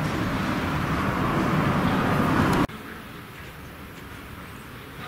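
Loud vehicle noise, growing slightly louder, that cuts off abruptly about two and a half seconds in, leaving quieter street background.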